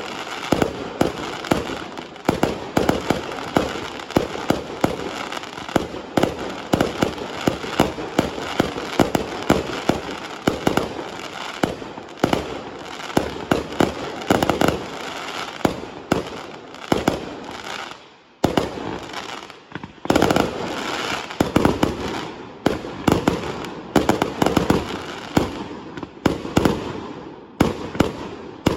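Fireworks display: a dense, continuous barrage of sharp bangs with crackle. It thins out briefly about two thirds of the way through, then resumes just as thick.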